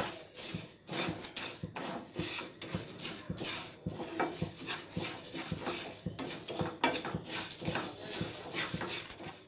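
A spatula stirring and scraping dry split moong dal around a nonstick frying pan, with the grains rattling and sliding in quick, repeated strokes. The dal is being dry-roasted until it smells toasted, before it goes into the pongal.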